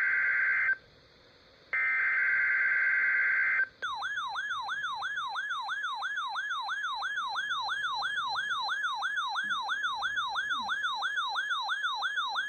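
Emergency Alert System broadcast: the end of one buzzing digital SAME header burst, a second header burst about a second later, then a rapidly warbling, siren-like alert tone sweeping up and down about three to four times a second. It marks the start of a new winter storm warning.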